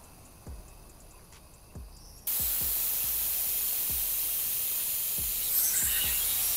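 Compressed air hissing from a semi-trailer's air suspension as its ride-height control lever is worked. A few faint knocks come first, then a loud steady hiss starts suddenly about two seconds in.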